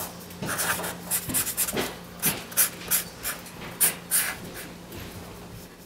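Felt-tip marker drawn quickly across a drawing surface: a rapid, uneven series of short scratchy strokes, some squeaky, that stop about four seconds in. A faint steady low hum runs underneath.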